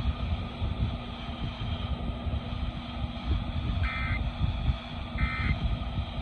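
Two short, identical bursts of Emergency Alert System SAME data tones, the end-of-message signal that closes an alert, about a second and a quarter apart from about four seconds in. Under them runs a steady low rumble.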